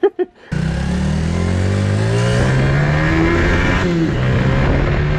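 Motorcycle engine running while the bike is ridden along a street. Its pitch climbs steadily as it speeds up. The sound starts abruptly about half a second in.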